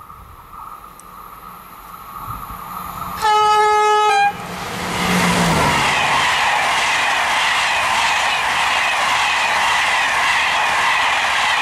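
Electric locomotive-hauled Intercités train of Corail coaches passing at speed: one loud blast of the locomotive's horn, a single steady tone lasting about a second, about three seconds in. Then the loud rush and rumble of the coaches' wheels going by, with the locomotive's hum dropping in pitch as it passes.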